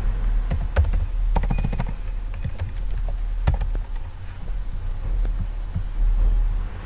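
Typing on a computer keyboard: a quick run of key clicks in the first couple of seconds, then a few scattered taps, over a steady low hum.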